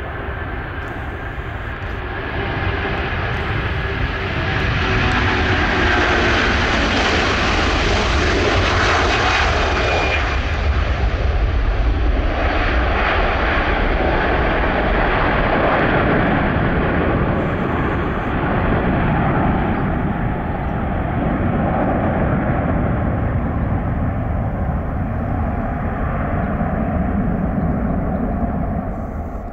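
Airbus A330-200's Rolls-Royce Trent 700 turbofans at takeoff thrust as the jet rolls past, lifts off and climbs away: a loud jet roar with a whine that swells over the first several seconds, then slowly fades.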